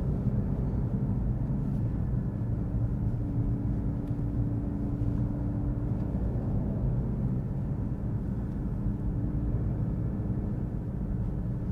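Mercedes-AMG C63's 2.0-litre four-cylinder hybrid powertrain and road noise heard from inside the cabin while cruising: a steady low drone with a hum that holds one pitch for a few seconds at a time.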